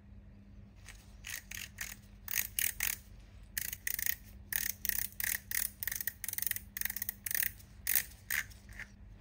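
Handling of a 3D-printed plastic tattoo-pen housing fitted with small ball bearings: a quick, uneven run of light clicks and ticks as the parts are twisted and pressed together, starting about a second in, over a faint steady hum.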